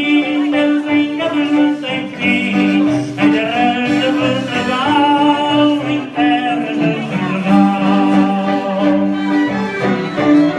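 A live band playing dance music: a melody that glides and wavers over steady, sustained low notes, continuous and loud throughout.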